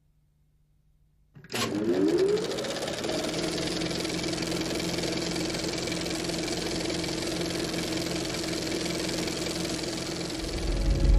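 Film projector switched on with a click, its motor spinning up with a rising whine for about a second, then running with a steady whirring clatter. A low rumble swells in near the end.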